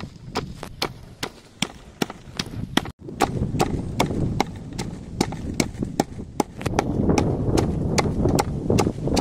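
Wooden pestle pounding red chillies and garlic in a mortar: a steady run of sharp knocks, about three a second, over a dull wet crushing that grows fuller near the end. The pounding breaks off for an instant about three seconds in.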